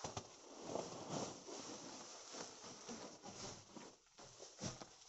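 Irregular rustling and scuffing of woven plastic sacks and dry twigs being shifted around, a run of short, uneven scrapes with no steady rhythm.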